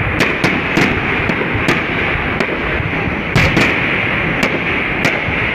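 Fireworks display: aerial shells bursting in an irregular series of about ten sharp bangs, over steady background noise.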